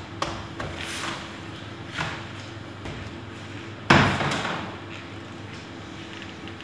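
A pressed cheese being turned out of its cheesecloth-lined plastic crate onto a steel work table: light rustling and handling knocks, then one loud thump about four seconds in. A faint steady hum runs underneath.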